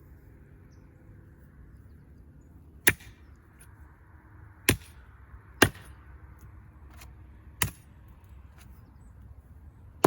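Heavy brush knife chopping into a small tree trunk while cutting the felling notch: four sharp strikes of the blade biting into wood, one to two seconds apart.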